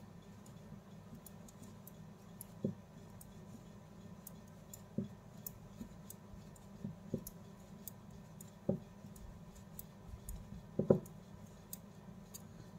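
Hand crochet with a long aluminium hook and strips of cloth: soft, irregular knocks and light clicks as the hook and fabric are worked, every second or two, the loudest about eleven seconds in.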